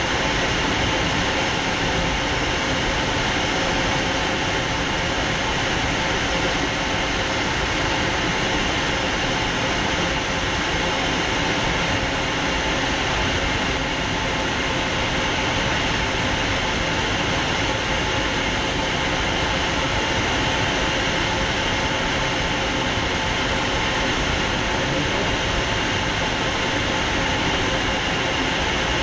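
Cockpit noise of a Fouga Magister jet in flight: the steady hiss and whine of its twin Turbomeca Marboré turbojets mixed with airflow over the canopy, with several high whine tones held unchanged.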